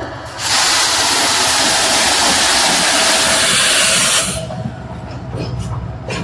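Train passing close by: a loud rushing hiss sets in suddenly and lasts about four seconds over a low rumble, then drops away to a quieter rumble with scattered clicks.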